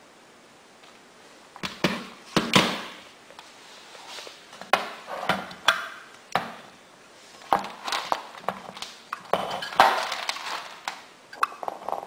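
Irregular metallic clinks and knocks as the Simplex bell's back plate and wiring are handled, about a dozen separate strikes, some with a short ringing tail.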